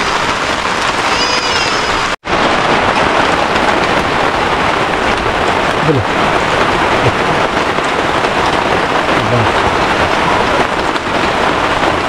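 Steady heavy rain falling, a dense even hiss of raindrops that cuts out for an instant about two seconds in and resumes at once.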